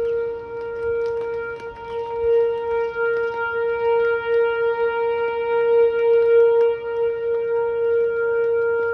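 Whelen 4004 electronic outdoor warning siren sounding a steady tone, its loudness swelling and fading.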